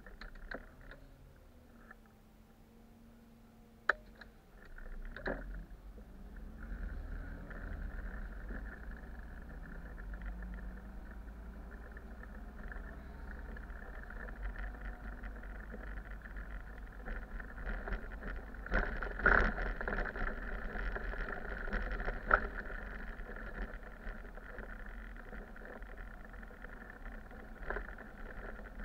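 Cab of a city bus on the move: quiet for the first few seconds with a sharp click about four seconds in, then engine and road noise builds as the bus gets under way and runs on steadily, with occasional knocks and rattles.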